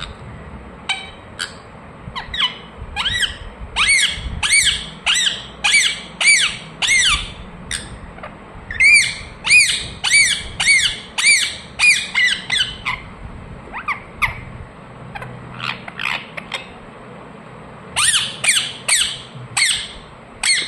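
Indian ringneck parakeet giving runs of short, harsh, crow-like squawks, about two a second, in several bursts separated by brief pauses.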